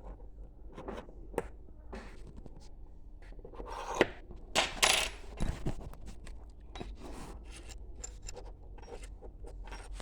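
Small metal tools and clock parts clinking and scraping on a workbench, with a cluster of sharper clinks and a scrape about four to five and a half seconds in.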